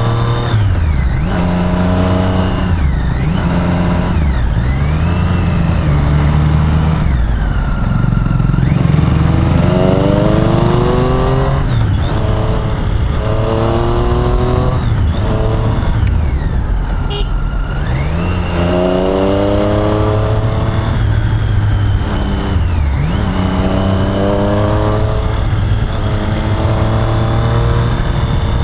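Triumph Street Triple's inline three-cylinder engine under way, accelerating through the gears and backing off over and over: its pitch climbs in several rising pulls and falls away between them.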